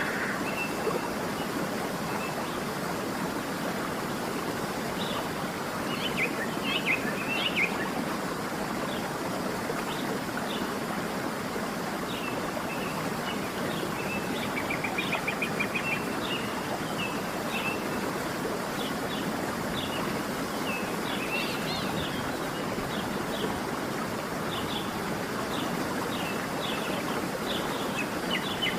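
Waterfall rushing steadily, with small birds chirping in short calls throughout and a quick trill about fifteen seconds in.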